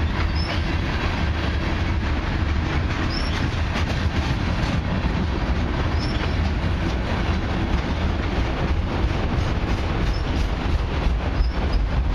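Cars of a long mixed freight train (coil cars, autoracks) rolling past: a steady rumble of steel wheels on rail, with a few brief high wheel squeals now and then.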